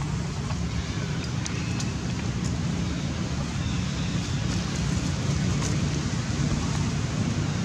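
Steady low rumbling wind noise on the microphone, with a few faint ticks.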